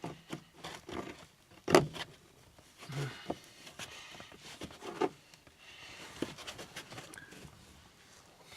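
Plastic interior trim liner in a car's rear quarter being pulled loose by hand: scattered scrapes and knocks, the loudest a sharp knock about two seconds in.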